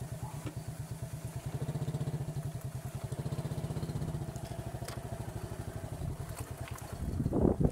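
Small motorcycle engine running while riding, with a fast, steady beat that grows a little louder for a couple of seconds in the middle. A brief louder rush comes near the end.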